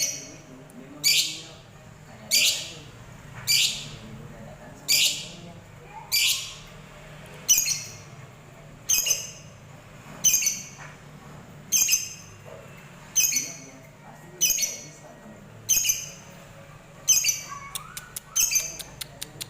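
Lovebird calling: a short, high-pitched squawk repeated at a steady pace about every 1.2 seconds, with a run of quick sharp ticks near the end.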